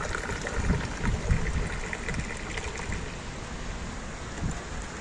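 Tea poured in a thin stream from a metal teapot held high into a small tea glass, splashing as it fills, with the glass tipped back into the pot near the end. Wind rumbles on the microphone throughout.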